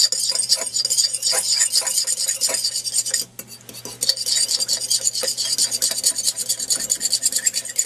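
Fork whisking a raw egg in a ceramic bowl: rapid clicking and scraping strokes of the tines against the bowl, with a short pause a little over three seconds in.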